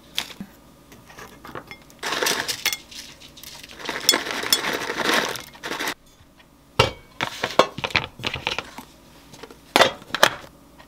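Small crunchy oat snack pieces poured from a paper bag into a bowl, rattling in two pours, then a stainless steel food container and its lid knocking and clicking a few times as the lid is pressed on.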